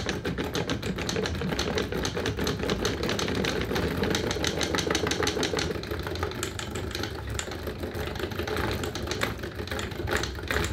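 Homemade solenoid engine of a small model car, its solenoid plungers clacking in a rapid, even rattle of several strokes a second that turns sparser and uneven after about six seconds as it labours with its wheels on the table. The stutter comes from the timing between the cylinders being too short, so the coils switch before the pistons reach the right point.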